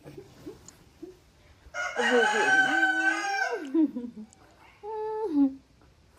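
A rooster crowing: one long crow starting a little under two seconds in and dropping in pitch at its end, followed about a second later by a shorter call that also falls away.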